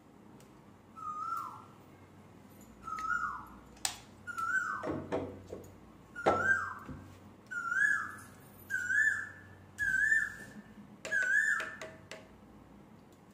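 An animal's call repeated about eight times, roughly once a second: each a short, clear note at about the same pitch that dips at its end. A few light clicks fall among the calls.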